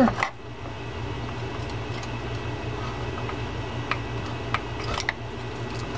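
A few faint metal clicks of a small screwdriver working the set screw into a fishing reel's handle, over a steady background hum from the workshop.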